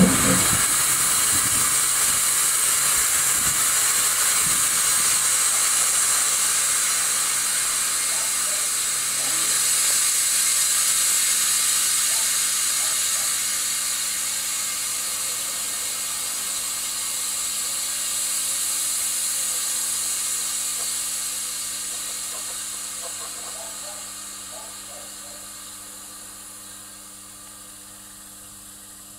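Air hissing from the compressed-air system of an LE 5100 kW electric locomotive once its compressor has stopped, dying away slowly over about half a minute. A faint steady low hum lies underneath.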